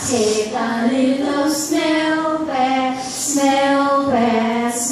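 Women singing a simple song unaccompanied into a microphone, in short held phrases.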